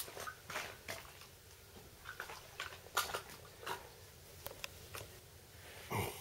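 Scattered soft clicks and rustles of handling close to the microphone, with a slightly longer rustle near the end; no shot is fired.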